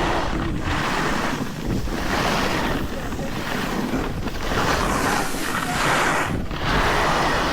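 Skis or snowboard edges scraping and hissing over packed snow in a series of turns, swelling about five times as each turn bites. Steady wind buffeting on the microphone underneath.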